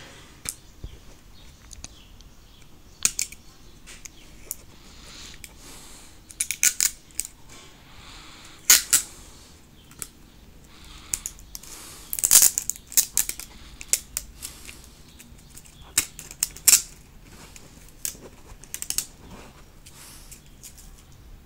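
Hard clear plastic packaging case of an iPod shuffle being handled and opened: irregular sharp plastic clicks, crackles and scrapes.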